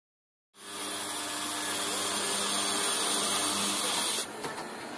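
Automatic metal-cutting circular saw machine running: a steady loud hiss with a hum underneath, starting about half a second in and dropping to a quieter level a little after four seconds in.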